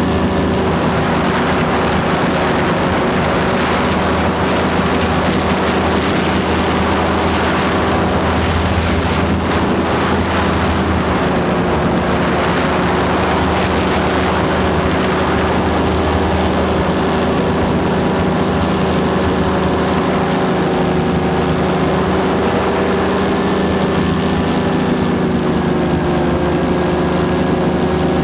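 Paramotor engine and propeller running steadily at cruise power in flight, its pitch easing slightly about halfway through.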